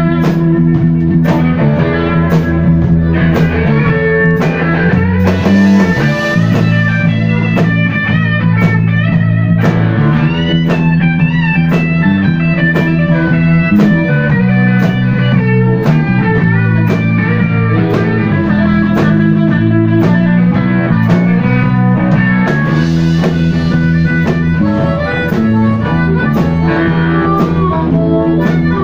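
Live blues-rock band playing loud, with an electric guitar playing over a steady drum beat and bass.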